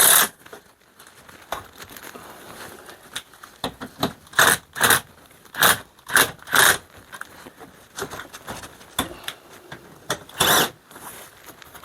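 Short scraping bursts while the new air conditioner's mounting bolts are tightened: about six in quick succession in the middle and one more near the end.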